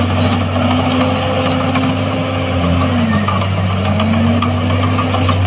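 Heavy construction-machinery diesel engine running steadily. Its pitch dips about three seconds in and climbs back a second later.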